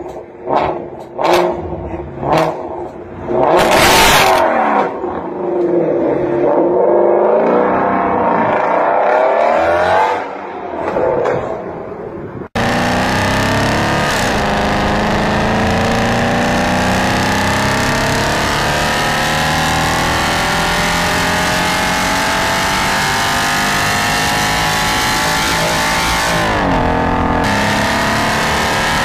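Shelby Mustang's V8 revved in a few sharp blips, the loudest about four seconds in, then pulling away with the engine note rising and falling. About halfway through the sound cuts to a second muscle car's engine under hard acceleration on a highway: a long, slowly rising engine note with wind noise, dropping at a gear change near the end.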